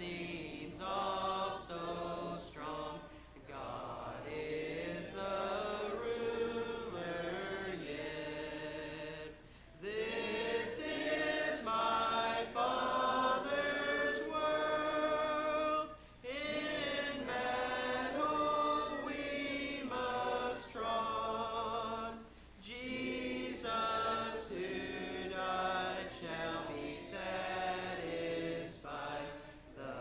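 Church congregation singing a hymn a cappella, several voices together with no instruments. The phrases break for breath about 9.5, 16 and 22.5 seconds in.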